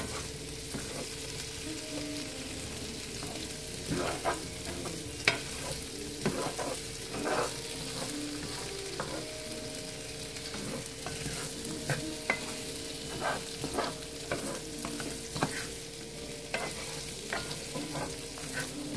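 Diced potatoes frying in oil in a cast-iron skillet: a steady sizzle, with a spatula scraping and clicking against the pan at irregular moments as the potatoes are stirred and turned.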